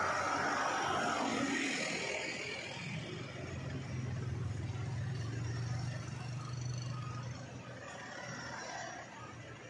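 Vehicle engines passing close by at low speed. A Hino dump truck's diesel is loudest at the start, then a car's engine runs with a steady low hum as it creeps past, fading near the end.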